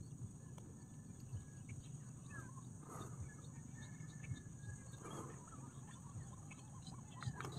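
Ducks on the water calling quietly, two short calls about three and five seconds in, over a steady high-pitched hiss.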